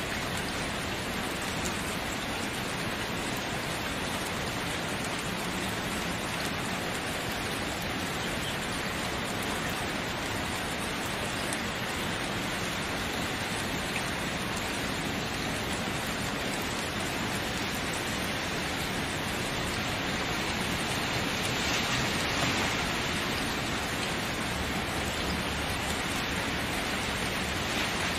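Steady rain falling, a dense even hiss of drops with no separate patter standing out, swelling slightly for a moment about three-quarters of the way through.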